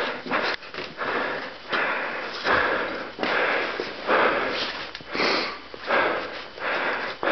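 A person breathing hard close to the microphone, loud noisy breaths roughly once a second.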